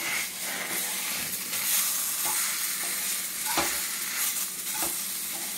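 Chopped tomatoes, onions and ground spices sizzling and frying in hot oil in an iron pan as they are stirred, with a few light knocks of the stirring utensil against the pan.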